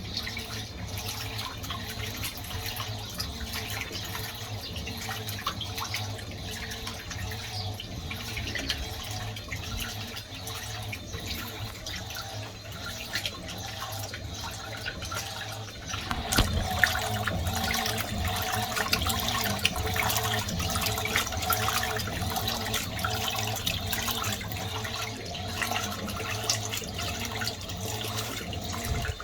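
Fisher & Paykel MW511 washing machine running with water rushing and splashing inside it. About halfway through it gets louder and a steady hum comes in.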